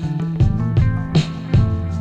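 Background music: an instrumental track with guitar and a regular drum beat.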